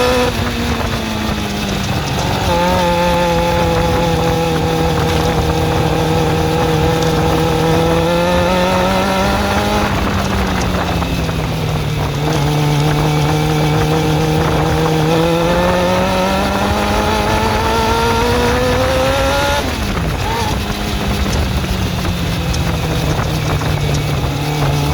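Suzuki GSX-R400 inline-four engine running at held, raised revs that slowly rise and fall, with a quick drop about twenty seconds in. The owner is chasing a ticking from the motor and suspects the valve shims or the timing chain.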